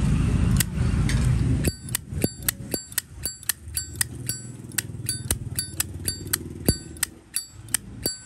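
Brushed-chrome Zippo windproof lighter, its lid flicked open and snapped shut over and over: about three crisp metallic clicks a second, each with a brief bright ring, the lid and hinge sound tuned by the seller. A loud low rumble like passing traffic fills the first couple of seconds.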